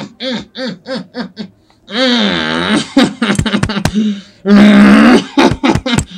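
A man's voice making short rhythmic grunts that speed up and stop, then two loud drawn-out rasping yells a couple of seconds apart, with sharp clicks and smacks between them.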